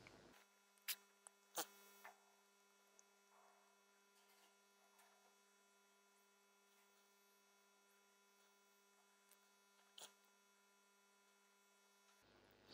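Near silence: a faint steady electrical hum, with a few faint clicks about a second in and once more near the end.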